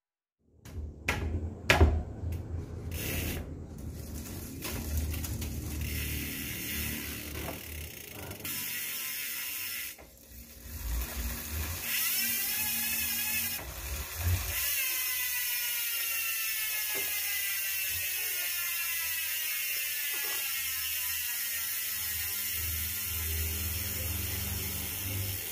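Bicycle drivetrain turned by hand on a stand: clicks and chain clatter at first, then the spun rear wheel coasts, its cassette freehub pawls ratcheting in a steady buzz that slowly falls in pitch as the wheel slows.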